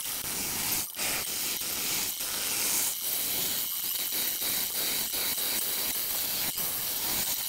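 Bowl gouge cutting the inside of a spinning wooden bowl on a lathe, played back at high speed: a steady high hiss broken by many brief dropouts.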